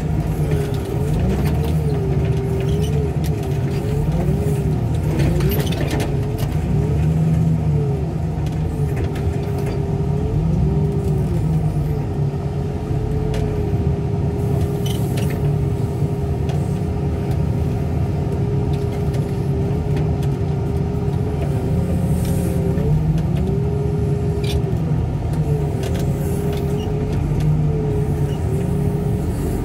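Wheel loader's diesel engine running steadily, heard from inside the cab, with a whine that keeps rising and falling as the machine works and a few short knocks.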